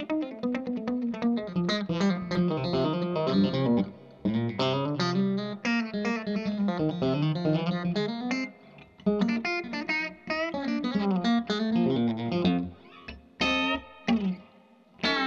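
Reverend Eastsider electric guitar played through a Sound City SC20 20-watt 6V6 valve amp, its signal run through a delay pedal. Picked lines come in phrases, with short pauses about four, eight and a half and thirteen seconds in.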